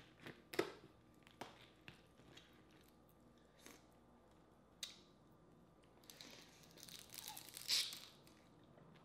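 Boiled crawfish shell being cracked and pulled apart by hand, with a few sharp snaps over the first five seconds. Near the end comes a longer run of close-up eating sounds as the crawfish is bitten and eaten at the mouth, loudest just before the end.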